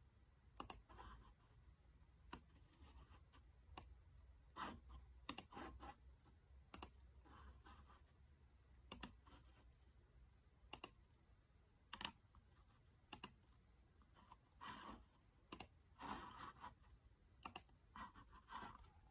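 Faint, irregular clicks from someone working a laptop, about one every second or two and some in quick pairs, with soft rustling in between.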